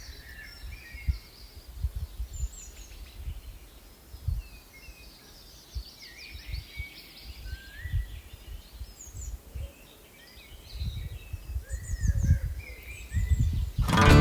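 Several wild birds chirping and singing in short, scattered phrases, over irregular low bumps and rumble on the microphone.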